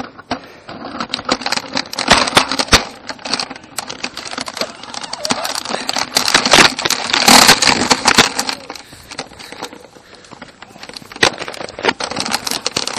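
Irregular clattering, knocking and rustling from a handheld Nerf blaster and its mounted camera being jostled as the player moves, loudest about two-thirds of the way through.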